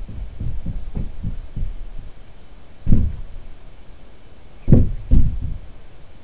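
Dull, low thumps or knocks: a quick run of soft ones at the start, one louder thump about three seconds in, and two loud thumps close together near the end.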